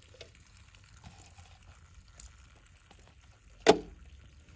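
A kitchen knife chopping through an empty plastic bottle: one sharp, loud crack about three and a half seconds in.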